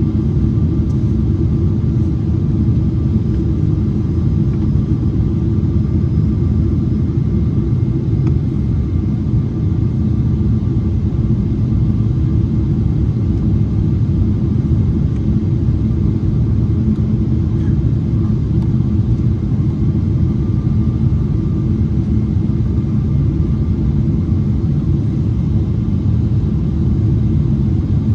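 Steady low rumble of cabin noise inside a Boeing 777-300ER on approach, from its GE90 engines and the airflow over the fuselage, with a few faint steady tones above it.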